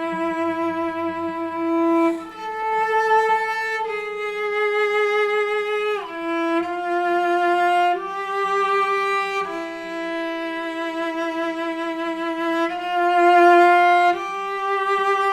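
Violin playing a slow melody of long bowed notes with vibrato, moving to a new note every second or two.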